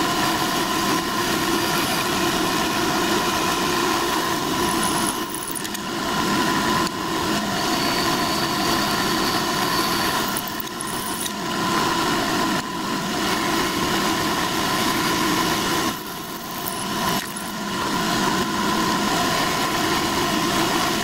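Milling machine running while drilling a ring of rivet holes through a model locomotive smokebox shell, a steady machine drone with short dips every few seconds.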